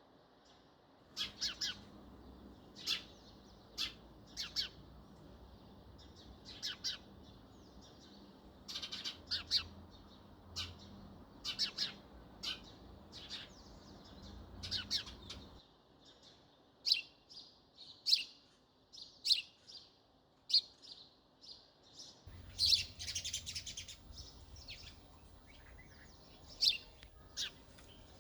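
House sparrows chirping: short, sharp chirps, some single and some in quick clusters, at an irregular pace throughout.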